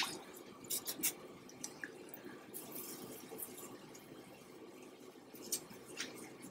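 Cinnamon sugar sprinkled by hand onto hot fried puff-pastry pies on a wire cooling rack: a faint patter with a few light ticks near the start and again near the end.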